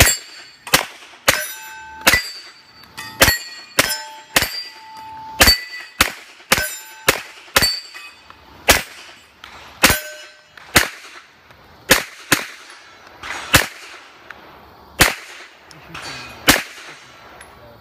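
Pistol shots fired in quick succession, about twenty of them at roughly one a second, many followed by the short metallic ring of steel plate targets being hit.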